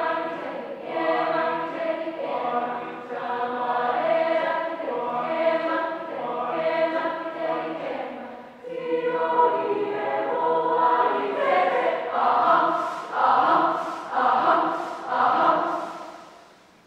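Mixed choir singing a cappella in sustained chords. Over the last few seconds it sings about five strongly accented chords roughly a second apart, then the sound stops as the piece ends.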